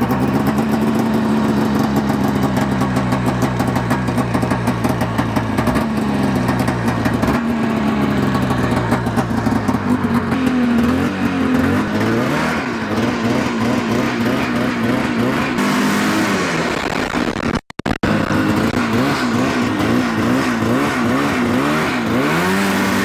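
1980 Arctic Cat El Tigre 5000 snowmobile's free-air two-stroke twin running just after being pull-started, now sparking on its new CDI and coil: it idles steadily at first, then revs up and down as it is ridden off. A brief break comes about three-quarters of the way through, after which it keeps revving up and down.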